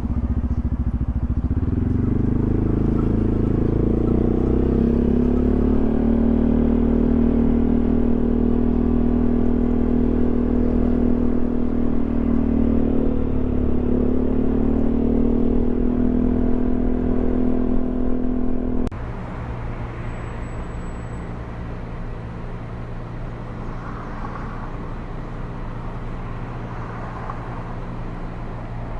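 Yamaha XMAX 300 scooter's single-cylinder engine running under way, its pitch rising over the first few seconds and then holding steady at cruising speed. About 19 s in the sound cuts off abruptly to a quieter, steady low hum.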